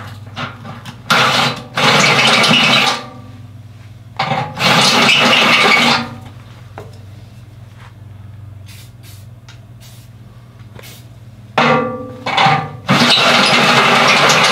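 Handheld power drill with a step bit boring out a bolt hole in the steel loader bucket, enlarging it so the hook's bolt will line up. It runs in several bursts of one to three seconds, with a long pause in the middle.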